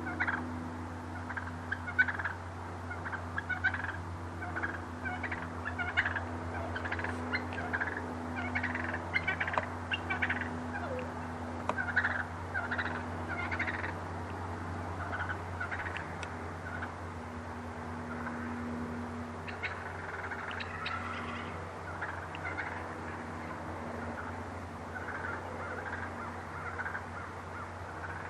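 Wild turkeys calling: many short, repeated calls, sometimes overlapping, coming thick in the first half and more scattered later, over a steady low hum.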